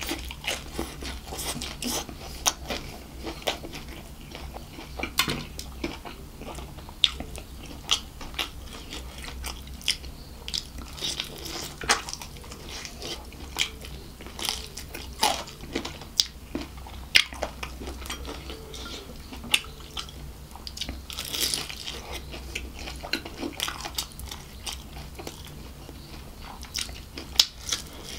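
Close-miked biting and chewing of KFC crispy fried chicken: irregular sharp crunches as the breaded coating breaks, over a steady low hum.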